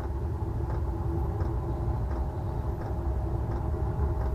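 Diesel parking heater running during its cold start, heard at the exhaust: a steady low rumble with a steady fan hum and faint ticks under a second apart.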